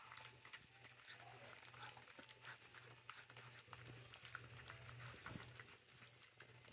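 Puppies faintly crunching dry kibble from a stainless steel feeding pan, with scattered small crunches and clicks of kibble against the metal over a steady low hum.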